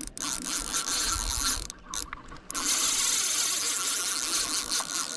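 Spinning fishing reel clicking in a fast, continuous ratcheting rattle, breaking off briefly about two seconds in and then starting again.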